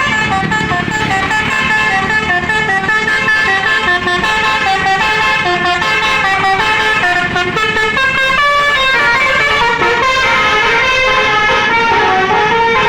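A bus's Basuri 'telolet' multi-tone horn playing a fast, unbroken melody, several pitches sounding together and changing note several times a second.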